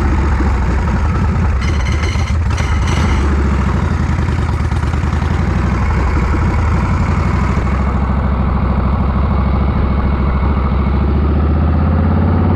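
1981 Harley-Davidson Shovelhead V-twin engine running steadily, fed by a freshly tuned S&S Super E-style carburetor.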